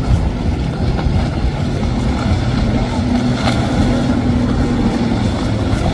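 Yamaha outboard motor on a center-console boat running at speed, a steady low drone mixed with the rushing splash of the hull through waves.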